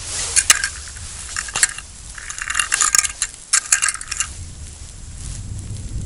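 Quick irregular clicks and light clinks, close to the microphone, from a short winter ice-fishing rod and its line being handled. They are bunched in the first four seconds and die away after that.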